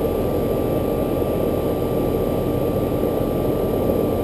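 Outdoor condensing unit of a central air conditioner running steadily, its condenser fan blowing air over the running compressor, with a thin steady high tone. The old, hard-starting compressor is now running with a hard-start kit and new capacitors.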